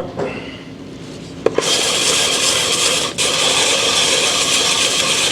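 Cast gasket surface of a Carter dual-action fuel pump's vacuum-pump top being rubbed on sandpaper to flatten it and check it for warp. A click about a second and a half in, then steady scraping with a brief break near three seconds.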